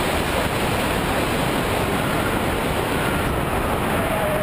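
Steady rushing noise, like wind buffeting a microphone, on the audio of a high-altitude amateur rocket's onboard camera in flight.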